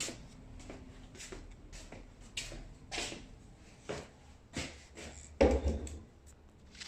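Scattered short knocks and rustles of handling, with a louder thump about five and a half seconds in.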